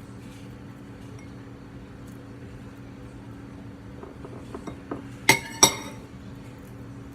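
Two sharp, ringing clinks of a hard object against a glass or ceramic dish, about a third of a second apart, after a few faint taps, over a low steady hum.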